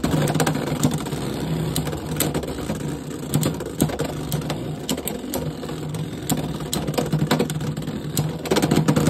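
Two Beyblade X spinning tops, Helm Knight and Tusk Mammoth, whirring steadily in a plastic Beyblade X stadium. Irregular sharp clacks come as they collide and rattle against the stadium.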